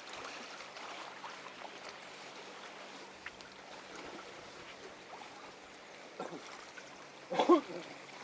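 Faint steady rushing of river water with a low hum underneath, and a brief spoken word about seven seconds in.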